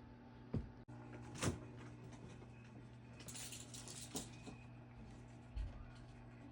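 Scattered household knocks and thumps over a steady low hum, with a brief rustle about three seconds in.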